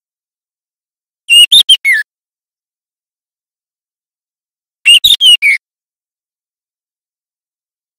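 Juvenile white-rumped shama calling: two short phrases of four or five quick whistled notes, each ending on a dropping note, about three and a half seconds apart. It is a young bird practising its song.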